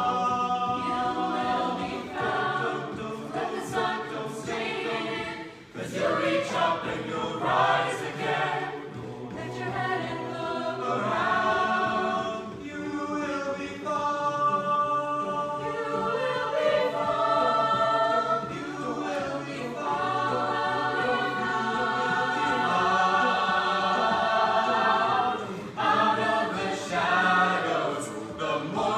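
Mixed-voice a cappella group singing in harmony without instruments, with long held chords through the middle of the passage.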